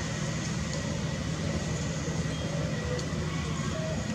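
Steady low rumbling background noise with a faint, thin high whine held throughout and a few faint short chirps.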